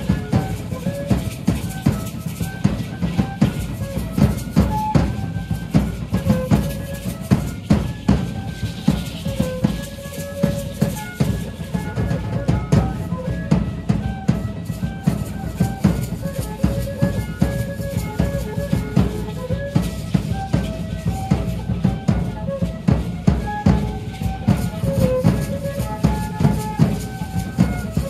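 Music for a danza de pluma: a large double-headed drum beaten in a steady, driving rhythm, with a repeating melody line played over it.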